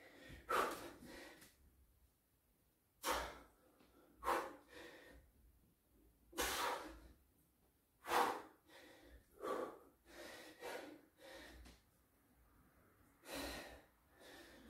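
A man breathing hard while doing push-ups, with a sharp breath every one to two seconds, the sound of heavy exertion near the end of a hard set.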